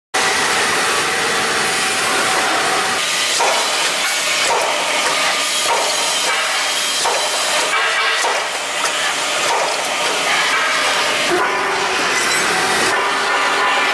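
CNC hydraulic punching machine running in a steel fabrication shop: a loud steady hiss with a series of short knocks as it punches holes in steel plate.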